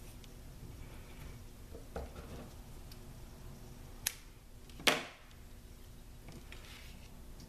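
Quiet tabletop handling of paper craft pieces and a liquid glue bottle: faint rustling with three sharp clicks or taps, the loudest about five seconds in.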